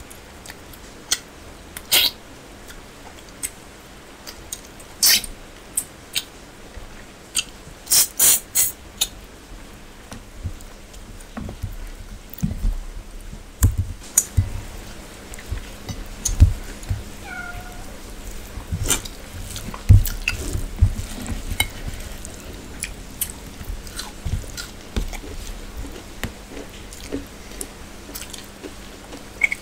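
Close-miked eating by hand: sharp crackling bites of fried small fish and clicks of fingers on steel plates, then a long run of chewing and lip-smacking. A single short high cry slides down in pitch about halfway through.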